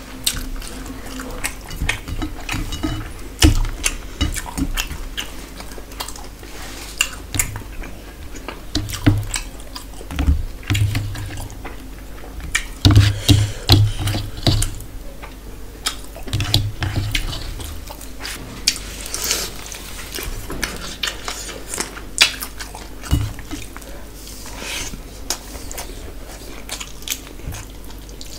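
Eating by hand from a steel plate: fingers mixing rice with curry and tapping and scraping the plate, with chewing, in many short clicks and taps.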